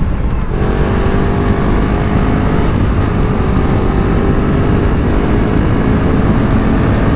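KTM RC 390's single-cylinder engine running steadily at speed on the highway, under a heavy rush of wind noise.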